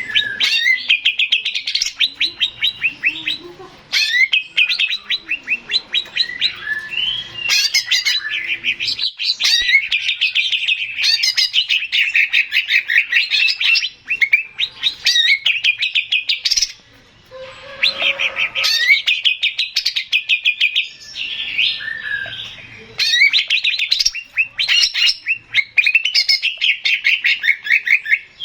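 Male green leafbird (cucak ijo) singing a long, fast run of chattering trills and rapid repeated notes, with short pauses about halfway through.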